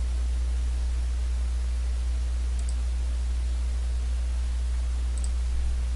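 Steady low electrical hum with an even hiss from the recording's microphone chain, with two faint ticks, one near the middle and one near the end.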